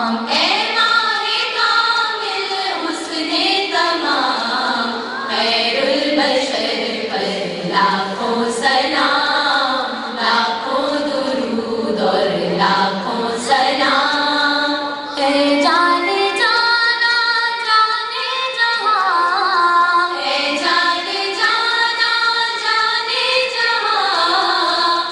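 A naat, an Urdu devotional song in praise of the Prophet, sung by young girls' voices together in long, ornamented melodic lines that slide up and down.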